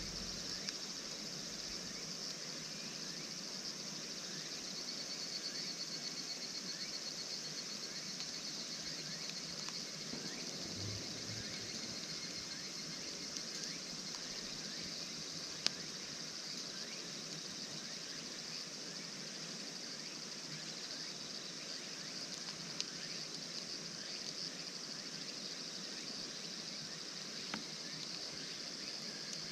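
Wood campfire crackling: a scatter of small ticks and a few sharper pops, over a steady high hiss of outdoor ambience.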